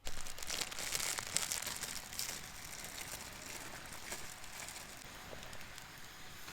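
Sukiyaki sizzling in a pan over a campfire: a steady crackling hiss that starts suddenly and is loudest in the first couple of seconds, then settles.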